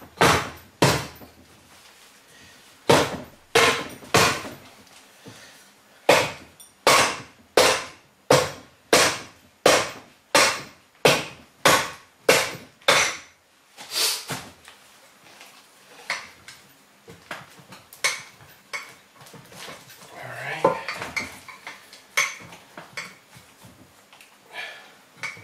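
Soft-faced mallet striking the cast aluminium crankcase of a Yamaha Zuma 125 scooter engine, working the case halves apart: a long run of sharp knocks with a short ring to each, up to about two a second at the busiest, thinning and weakening in the later part. A scraping rattle of metal parts comes about two thirds of the way through.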